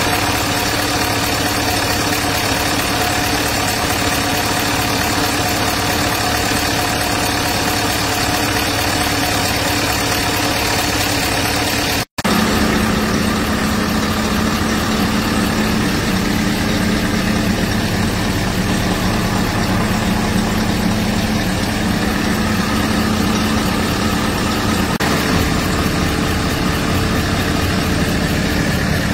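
Scania DC16 V8 diesel engine idling steadily. It cuts out for an instant about twelve seconds in and resumes with a slightly different tone.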